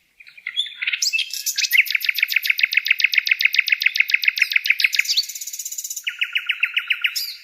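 A bird singing in rapid trills of repeated high notes, about ten a second. Several trills follow one another, a long one in the middle, then a higher one and a lower one, ending shortly before the close.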